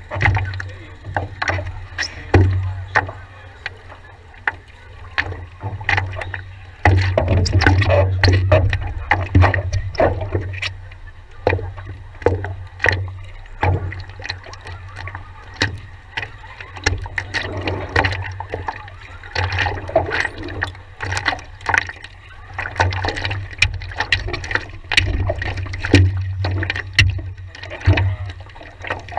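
Paddle strokes and water splashing and slapping against a stand-up paddleboard, in irregular sharp splashes over a low rumble that swells and fades.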